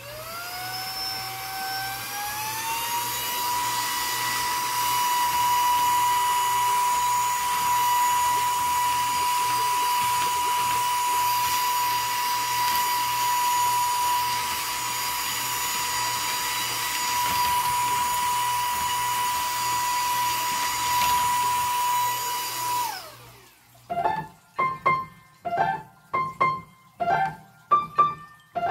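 Saker mini cordless brushless vacuum switched on: its motor whine climbs in pitch over the first few seconds to a steady high whine and runs while it sucks dog hair off the floor, then drops in pitch and stops about 23 seconds in. Near the end, a few single piano notes are played.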